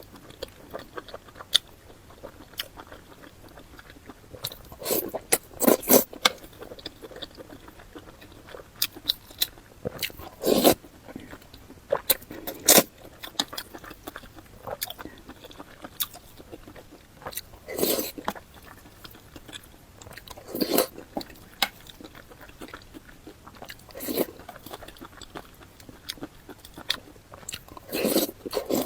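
Close-miked mouth sounds of a person eating: bites and chewing with crunchy bites now and then, coming in irregular clusters every few seconds.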